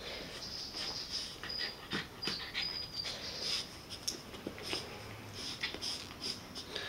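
Maltese–Shih Tzu mix snorting and snuffling in quick, irregular, breathy bursts as it rolls and wriggles on its back on a carpet, with a brief high whine about two and a half seconds in.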